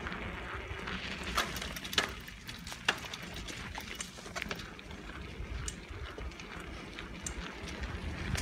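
Bicycle rolling along asphalt and a concrete sidewalk: a steady low rumble of tyres and wind on the phone's microphone, with scattered, irregular sharp clicks and knocks, the loudest about two and three seconds in.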